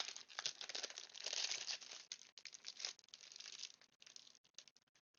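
Plastic packaging crinkling and rustling as it is handled, thinning out to a few light clicks near the end.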